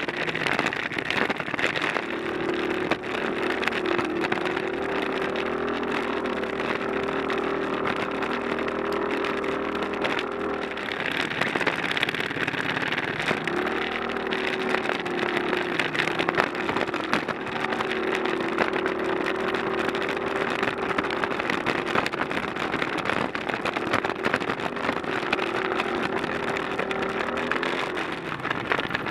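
Scooter's motor running under way off-road, its pitch rising and falling several times as the throttle and speed change, with a rough noisy rumble from the ride underneath.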